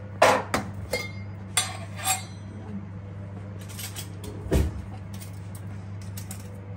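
Kitchen utensils and containers clinking and knocking. There are several sharp clinks in the first two seconds, a small cluster around four seconds and a heavier knock with a thud about four and a half seconds in, all over a steady low hum.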